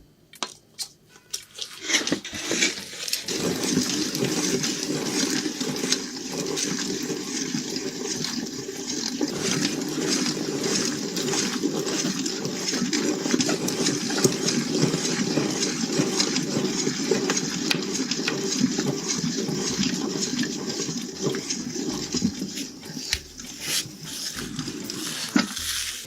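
Meat grinder running and grinding a burger: a loud, steady, wet churning noise that starts about two seconds in after a few clicks and stops shortly before the end.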